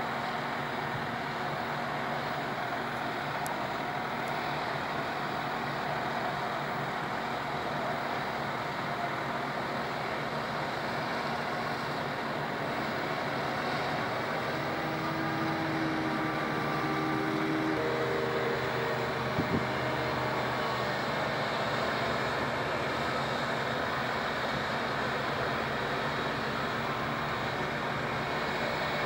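Self-propelled forage harvester and the tractor alongside it running steadily while chopping the crop and blowing it into the trailer: an even, unbroken drone of engines and cutting machinery.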